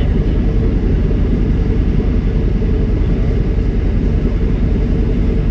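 Dryer vent cleaning equipment running: a loud, steady low rumble that cuts off suddenly at the end.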